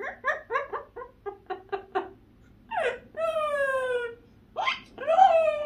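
Yellow-naped Amazon parrot calling: a quick run of short notes, about four a second, then two long drawn-out calls that slide down in pitch.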